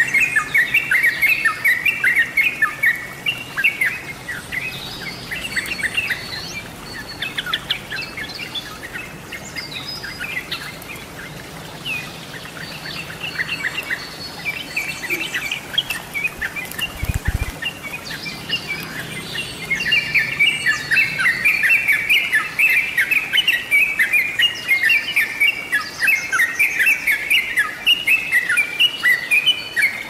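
Yellow-vented bulbul (trucuk) song: fast, bubbly chattering phrases, dense at first, sparser through the middle, and dense and loud again from about twenty seconds in.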